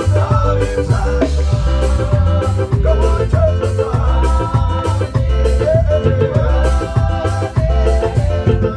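Live church band playing an upbeat worship song with a steady bass and drum beat, with singing over it.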